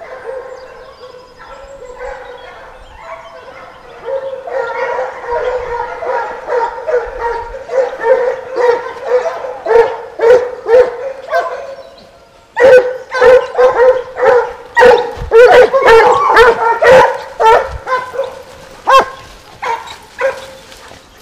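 A pack of scent hounds baying and yelping as they run a fox. The calls are fainter at first and build up. The loudest, densest run of barks comes a little past halfway, and it thins out near the end.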